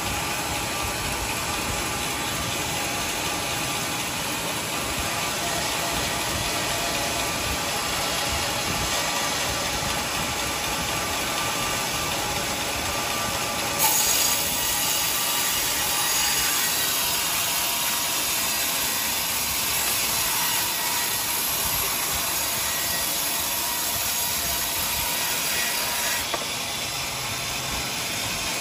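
Band sawmill running steadily, its blade cutting a teak block on the carriage. From about halfway in, a louder, hissier cutting sound sets in and drops away again near the end.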